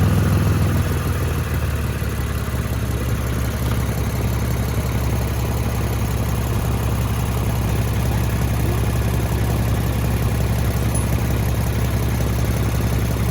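Lexus GS350's 3.5-litre V6 idling steadily, a low even hum that eases slightly about a second in.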